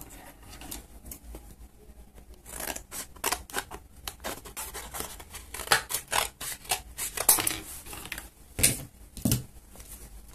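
Scissors cutting card: a run of short, crisp snips starting a couple of seconds in, the loudest two near the end, with the card rustling as it is handled.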